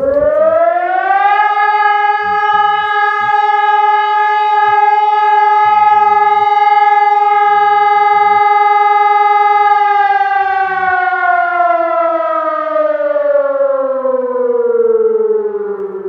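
Civil-defence warning siren sounding a test alarm: one loud tone that climbs to a steady pitch in the first second or so, holds it for about eight seconds, then slowly falls in pitch through the rest.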